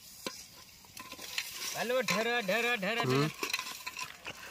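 Steel ladle stirring crab curry in an aluminium pot over a wood fire, with light clinks and sizzling. About two seconds in, a loud wavering call cuts across for about a second and a half, its pitch pulsing up and down several times.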